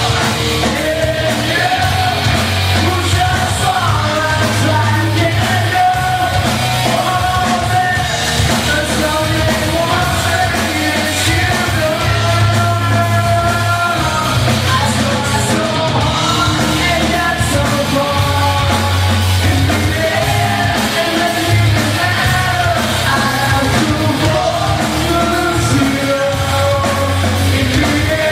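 Live rock band playing loud: a lead singer over electric guitars, bass guitar and drums.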